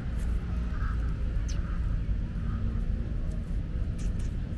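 Steady low outdoor background rumble, with a few faint distant sounds and light clicks over it.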